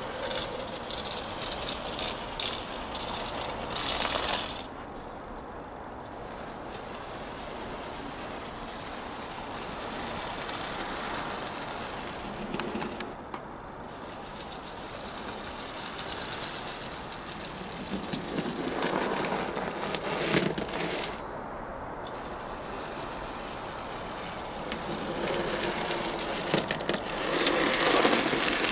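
Minitrains 009 Brigadelok model locomotive running on model railway track, with a steady rattle from its wheels and mechanism. It gets louder about two-thirds of the way through and again near the end, as it passes close by.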